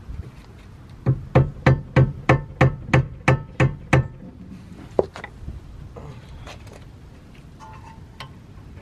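Hammer blows on metal at a car's rear brake and hub assembly: about ten ringing strikes at roughly three a second, then one more blow a second later, followed by faint clinks of tools on metal.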